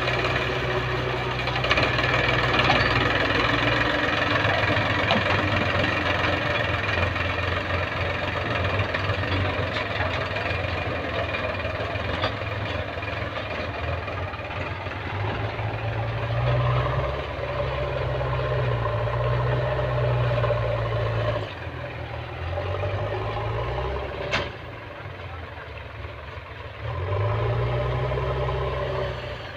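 Diesel farm tractor engine running under load as it pulls a plough through soil, its pitch shifting up and down. It turns quieter for a few seconds about three-quarters through, and a single sharp click sounds during that stretch.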